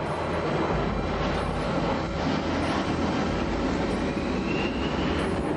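Jet airliner engines during a low pass: a steady rushing engine noise, with a faint rising whine near the end.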